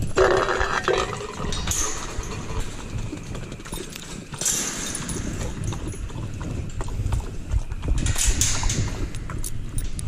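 Clinking and rattling at a welded-wire dog kennel, with a dog at a metal bowl inside it: a string of small clicks and knocks, and louder rattles near the start, about halfway, and near the end.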